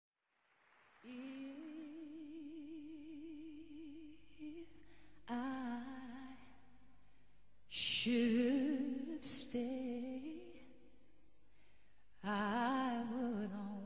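A woman singing slowly with a wide vibrato: one long held note, then three shorter sung phrases beginning about five, eight and twelve seconds in.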